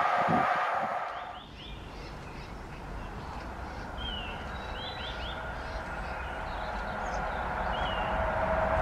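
The passing train's coaches rumble away and fade in the first second or so, then small birds chirp in short, rising calls. Near the end a low rumble slowly builds.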